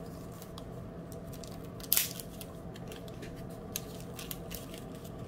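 Small plastic handling sounds from diamond-painting supplies: one sharp click about two seconds in, then a few faint ticks, over a faint steady hum.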